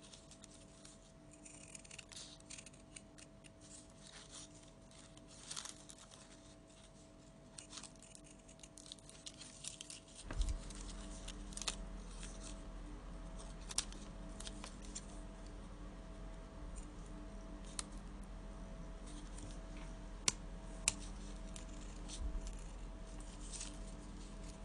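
Small scissors snipping through paper: a scatter of short, faint snips and clicks as pieces are cut out one by one. A low steady hum comes on about ten seconds in.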